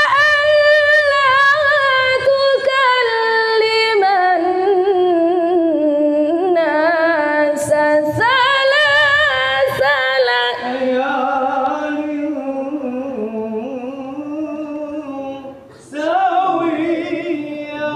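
Quran recitation (tilawah) in a high voice, unaccompanied. One reciter draws out long, ornamented melodic notes that slide gradually lower, then breaks off briefly and starts a new phrase near the end.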